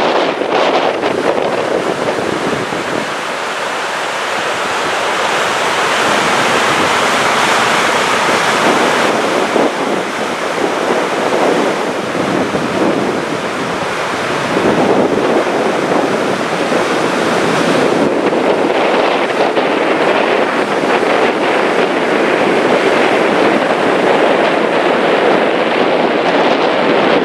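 Steady rushing of Gullfoss, a large waterfall, with wind buffeting the microphone.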